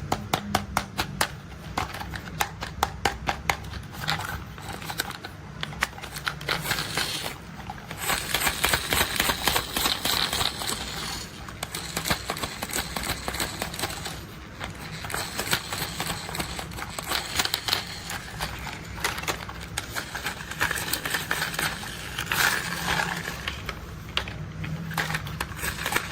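Rapid plastic clicking and rattling of toy construction vehicles being handled, in quick runs of sharp clicks with a denser, scraping rattle about eight to eleven seconds in.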